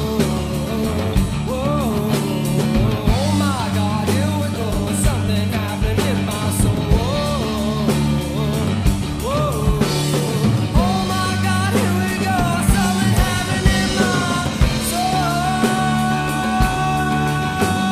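Rock band recording: singing over bass, guitar and drums, the melody sliding between notes in the first half and settling into longer held notes in the second.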